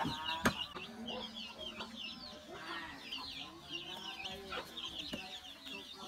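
A brood of chicks peeping rapidly and continuously, with a hen clucking low among them. A sharp click comes about half a second in, and two fainter ones near the end.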